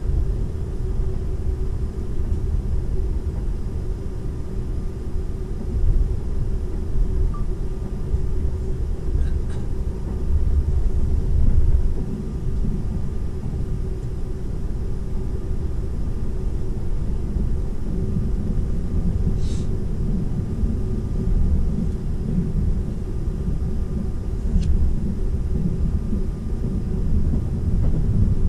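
Running noise heard from inside a Seibu 001-series Laview limited-express train at speed: a steady low rumble of wheels on rail, with a faint steady hum over it.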